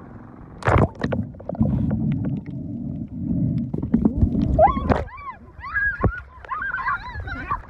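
Muffled sloshing and bubbling of seawater around a camera dipped in the sea. From about four and a half seconds there is a run of high squeals that rise and fall in pitch.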